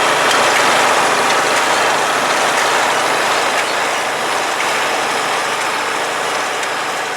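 Farm harvest machinery running, an engine with a mechanical clatter over it, growing slowly fainter over the second half.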